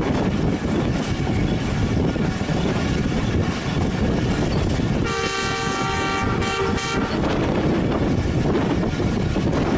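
ZCU-20 diesel-electric locomotive horn sounding one blast of about two seconds, about halfway through. Under it is the steady running noise of the moving train.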